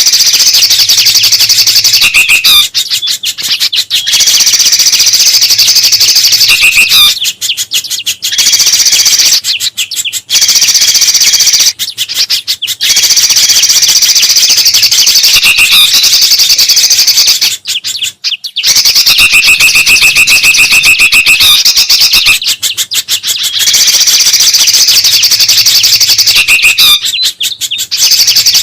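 Mixed bird-lure recording of noisy songbird calls, bulbuls and a spiderhunter among them, chattering densely and loudly in segments a few seconds long that start and stop abruptly, as in a looped edit.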